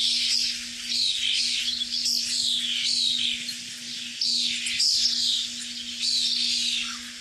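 Birds calling: a run of short, high calls that mostly fall in pitch, one after another about every second, over a faint steady low hum.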